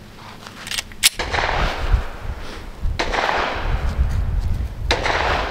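9mm pistol shots fired slowly: two close together about a second in, then single shots about two seconds apart. Each shot is followed by a long echoing tail.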